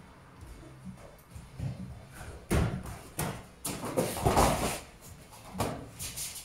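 Thuds and slaps of bare hands and feet on gym mats as a child tumbles across them: several separate impacts starting about two and a half seconds in, with a longer scuffing thud around four seconds in.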